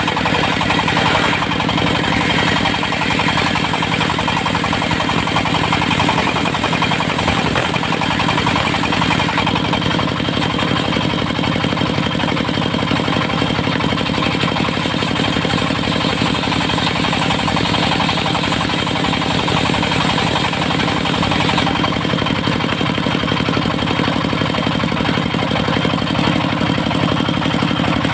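Diesel engine of a portable circular sawmill running steadily, with a fast, even knocking beat.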